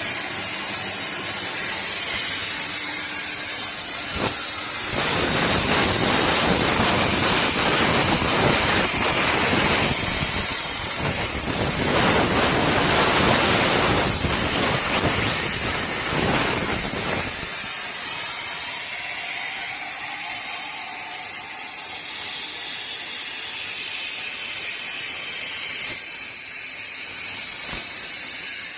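Plasma torch of a CNC gantry plasma cutting machine hissing steadily at a high pitch. A louder, rougher rush of noise joins in from about five seconds in and stops abruptly about seventeen seconds in.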